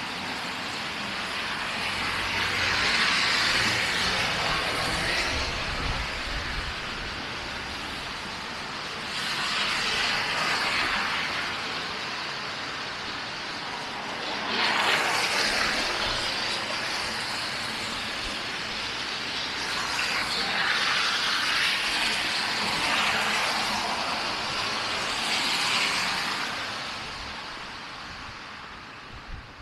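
Road traffic: cars passing one after another on a snowy street, their tyres hissing as each swells and fades, about five pass-bys.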